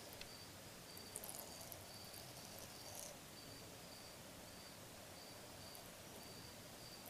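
Near silence, with a cricket chirping faintly: short high chirps at one pitch, about two a second.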